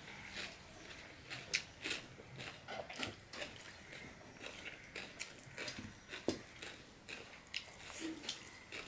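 Close-up eating sounds: soft chewing and mouth clicks, with irregular small clicks and squelches as fingers mix rice and curry on a steel plate.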